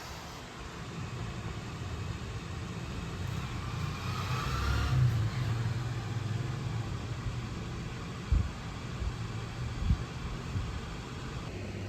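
Low, steady vehicle rumble, with a rising whine about four to five seconds in and a few short thumps near the end.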